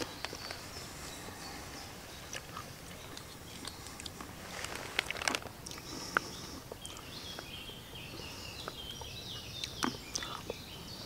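Woodland ambience: birds singing, including a stepping run of high notes from about six to ten seconds in, over scattered light clicks and rustles.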